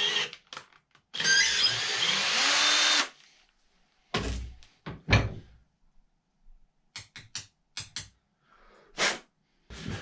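Cordless drill drilling into a brass part held in a bench vise, running for about two seconds, then two hammer knocks about a second apart, followed by a few light metallic clicks.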